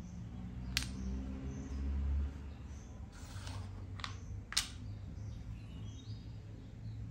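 Makruk (Thai chess) pieces clicking as they are picked up and set down on the board: one sharp click about a second in, then two more a little after four seconds, the second of these the loudest, over a steady low hum.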